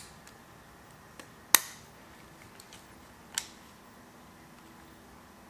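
Sharp clicks from handling a Fujifilm X-T4 mirrorless camera body as its battery is slotted in and the battery door snapped shut; about four separate clicks a second or two apart, the loudest about a second and a half in.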